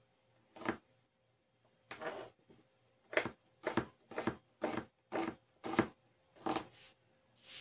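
Kitchen knife slicing red onion on a cutting board: about ten short chopping strokes against the board, roughly two a second, with a brief pause early on.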